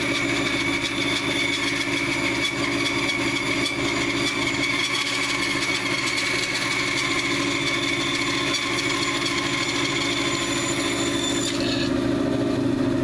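Band saw running and cutting through a section of old, dry log fed along the fence, a steady machine whine with rasping sawing noise. Near the end the high sawing noise drops away as the blade comes out of the wood, leaving the saw running free.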